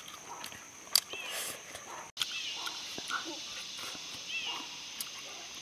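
Close-up eating sounds: wet smacks and sharp clicks of a mouth chewing grilled fish. Behind them run a steady high insect drone and a short chirping call that comes a few times.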